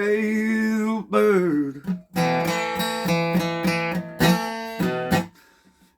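Strummed acoustic guitar under a singing voice that holds a long note, then sings "jailbird" with a falling pitch. The guitar strums on alone and stops shortly before the end.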